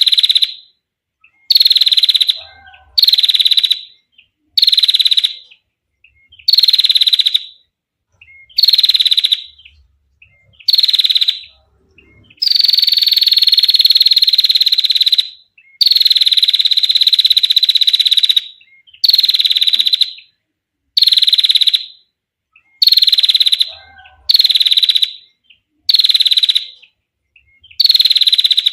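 Female prinia (prenjak) giving its rapid 'ngetir' trill: loud, high, steady-pitched bursts about a second long, repeated every second or so, with two longer trills of about three seconds each midway.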